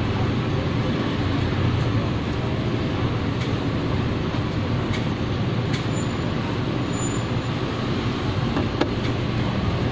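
Steady low rumble and hiss of background noise, with a few faint light clicks.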